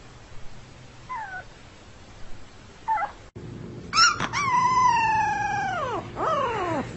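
Husky-type puppy howling: one long howl that slides slowly down in pitch and then drops away, followed by a shorter falling howl near the end. Before it come a few faint, short, high squeaks from a tiny black puppy.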